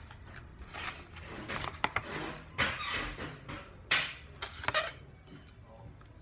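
An Oreo choco roll cake cardboard box being handled, with several short bursts of rustling and a few sharp clicks, over chewing.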